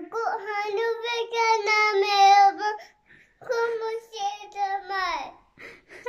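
A young child's voice singing two long held notes with a short break between them; the second note slides down at its end.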